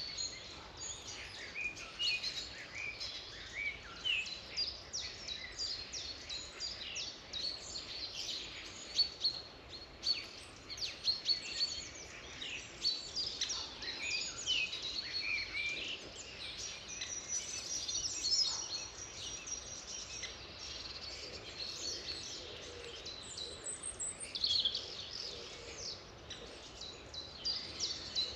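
A chorus of several songbirds singing and chirping at once, with overlapping high whistles, quick trills and chirps, over a faint steady background hiss.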